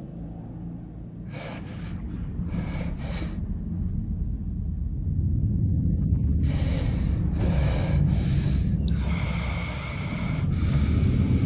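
A hurt woman breathing heavily in pained, uneven breaths and gasps: a few short ones at first, then longer, louder ones in the second half. A steady low rumble runs underneath.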